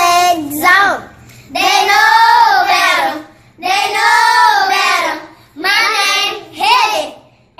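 A child singing: a few phrases of long held notes that waver in pitch, with short breaks between them.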